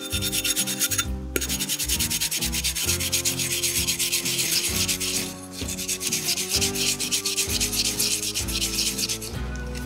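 Rapid, rhythmic scraping strokes from kitchen food preparation, several a second, with short pauses about a second in and again about halfway through.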